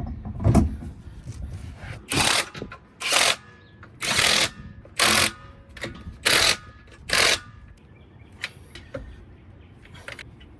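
Impact wrench fired in six short bursts about a second apart, running lug nuts onto the wheel studs. A heavy thump comes about half a second in, and a few light clicks come near the end.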